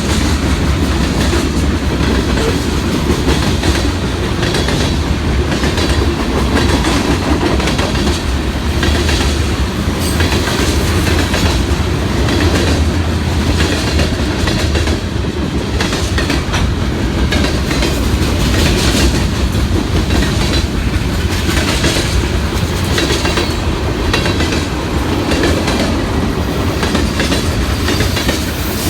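Cars of a Norfolk Southern freight train rolling steadily past, wheels clicking over the rail joints.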